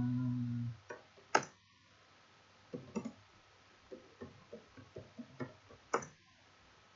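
Computer keyboard typing: a sharp keystroke about a second in, a run of lighter key taps, then another sharp keystroke near the end. A brief steady hum at the very start is the loudest sound.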